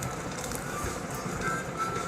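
Background music with held steady notes.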